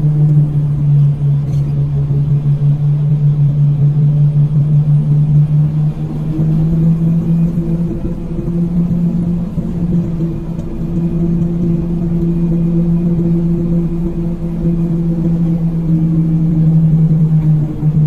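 Engine of a moving road vehicle running steadily at cruising speed, holding one steady pitch, over a low rumble of wind and road noise.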